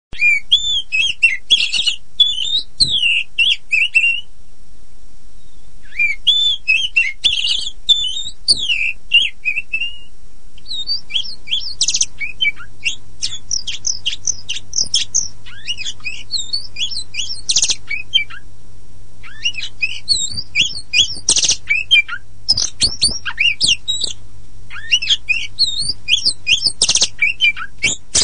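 Oriental magpie-robin of the black-and-white kacer poci type singing a fast, varied song of sweet whistles, chips and rapid trills, delivered in phrases several seconds long with short pauses between them.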